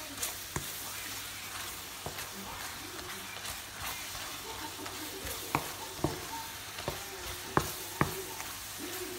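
Pineapple chunks cooking down in sugar syrup, sizzling steadily in a nonstick wok while a wooden spatula stirs them and knocks against the pan several times. The filling is being reduced until its liquid dries off.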